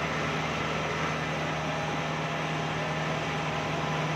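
Rice combine harvester's engine running at a steady drone while the machine travels, a constant low hum under an even hiss.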